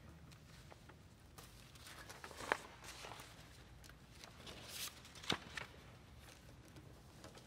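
A quiet pause with faint shuffling and rustling, broken by a few short sharp clicks or knocks, the loudest about two and a half and five seconds in.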